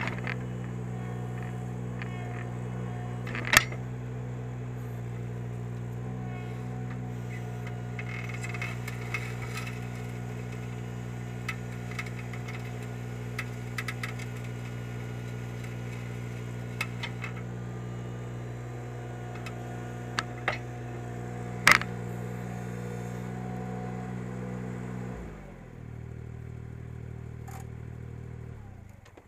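Ventrac 4520Z tractor engine running steadily at high speed with the stump grinder, broken by a few sharp knocks. About 25 seconds in it drops to a lower idle, and it dies away at the very end.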